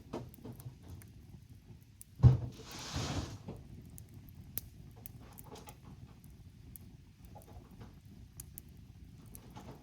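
Campfire crackling with scattered sharp pops. About two seconds in, a single heavy thump, followed by a second of rustling hiss.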